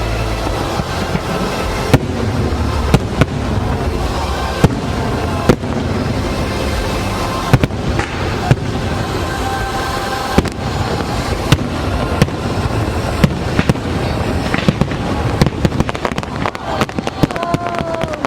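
Aerial fireworks bursting in sharp bangs every second or so over loud orchestral show music. A rapid run of crackling pops builds near the end.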